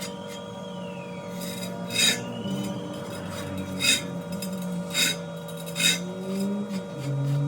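Background music over a hum, with four sharp metallic clinks about a second apart.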